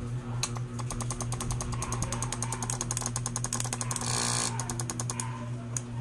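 Relays in a Nissin TMK-1500VA automatic voltage regulator chattering, clicking fast and evenly at about ten a second with a short buzz near the end, over a steady low mains hum. The chatter is the unit's noisy-relay fault, which is cured by resetting the board's voltage-adjust trimmer.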